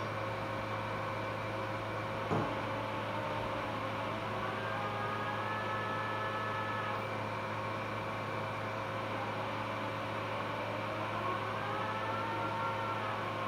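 Phacoemulsification machine's steady hum and fixed tones during irrigation and aspiration, with its vacuum tone rising in pitch and holding twice, about 5 s in and again about 11 s in, as aspiration vacuum builds. A single sharp click about 2 s in.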